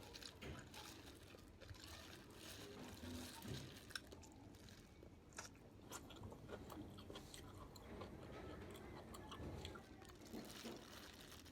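Faint chewing and mouth sounds of a person eating, with scattered small clicks.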